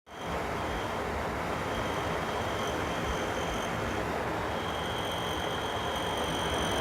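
Bathroom exhaust fan running with a steady whoosh and a high-pitched squeak that comes and goes in long stretches; the squeak is the fault being fixed.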